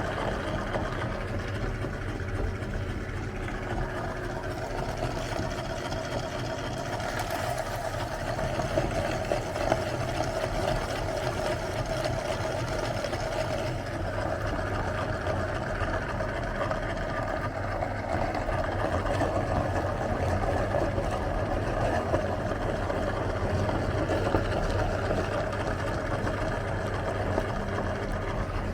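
Electric meat grinder motor running steadily with a constant hum, grinding ice cream bars.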